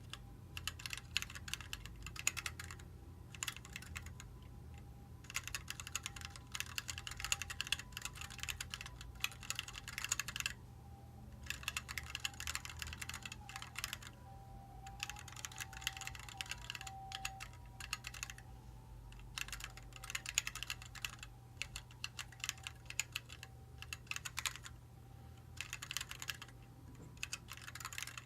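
Typing on a Planck 40% ortholinear mechanical keyboard with linear Gateron Red switches: rapid runs of key clicks lasting a second or three, broken by short pauses between words.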